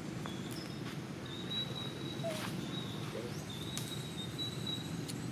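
Outdoor ambience: a steady low rumble, a thin high insect tone that starts and stops several times, and a few faint clicks.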